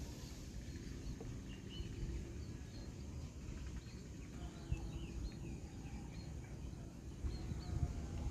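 A flock of small rice-field pest birds chirping, many short high calls overlapping, over a steady low rumble of wind or handling noise.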